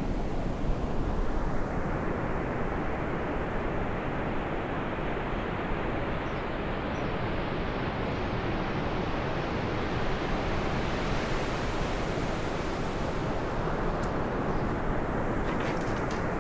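A steady rushing noise that slowly swells to a peak a little past the middle and then fades back, with a few light clicks near the end.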